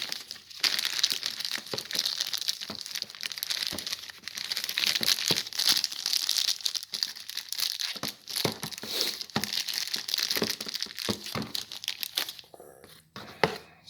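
Packaging bag crinkling and rustling as a tool is worked out of it by hand, a dense rustle with scattered clicks that dies away near the end.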